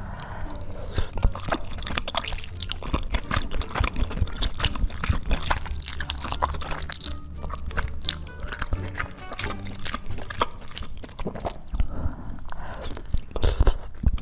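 Close-miked wet chewing and mouth sounds from eating chewy rice cakes covered in melted cheese, many irregular smacks and clicks, over background music.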